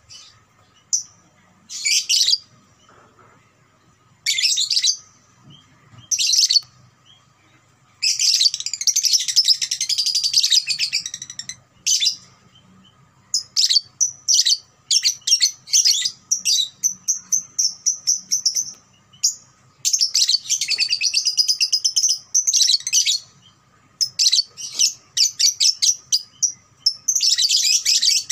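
Young Fischer's lovebird, about two and a half months old, singing its long chattering 'ngekek' song. It gives short separate calls at first, then from about eight seconds in long runs of rapid high notes, with a steady trill held for several seconds in the middle.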